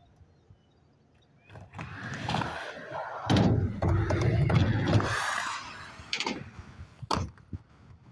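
Skateboard wheels rolling on a sheet-metal ramp, loudest about three to five seconds in, with sharp clacks of the board and a few separate knocks near the end.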